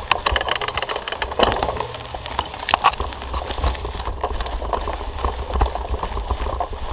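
Mountain bike rattling and knocking over a rough forest singletrack, with irregular sharp clatters of the bike bouncing over roots and dirt, most frequent in the first three seconds. A steady low rumble of wind and ride vibration on the camera microphone runs underneath.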